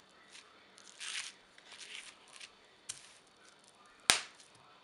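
Bubble wrap crinkling and rustling under hands, with a few small clicks and one sharp snap a little after four seconds in.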